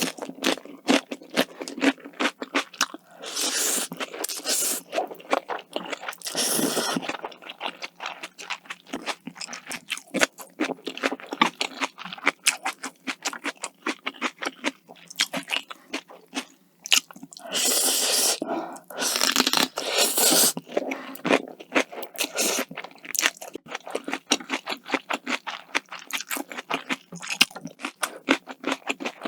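Close-miked eating: a steady run of crisp crunching and chewing, as of a raw cucumber pepper eaten with bibim noodles. It is broken by a few longer slurps of noodles, the longest around the middle.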